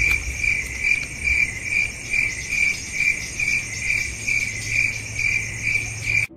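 Cricket chirping in an even rhythm, a little over two chirps a second, over a steady high whine; it cuts off suddenly near the end.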